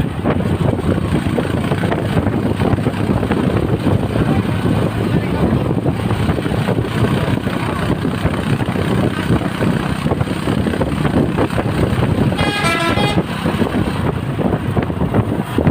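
Steady rumble of a moving bus's engine and road noise. About twelve seconds in, a telolet musical bus horn gives one short warbling toot of under a second.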